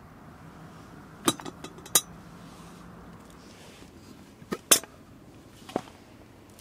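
Camp cookware and utensils clinking: a handful of sharp metallic clinks in two short clusters, the loudest about two seconds in and just before the five-second mark.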